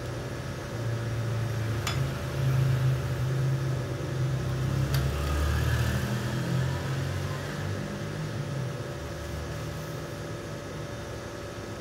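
A low motor hum that swells for several seconds and then fades, over a steady background hum, with two light clicks.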